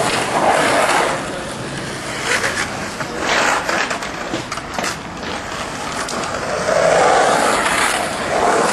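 Skateboard wheels rolling over the concrete of a skated pool, swelling and fading as the board carves up and down the walls, with a few sharp clicks.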